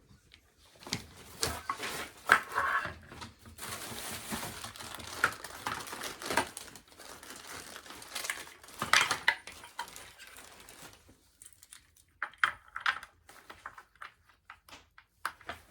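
Gaming chair parts being handled during assembly: irregular clinks, clicks and knocks of metal and hard plastic pieces, with a longer stretch of rustling a few seconds in.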